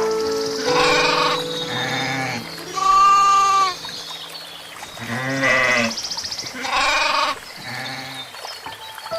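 A series of about six bleating calls from livestock, each under a second long and spaced a second or so apart, some with a wavering, fluttering quality.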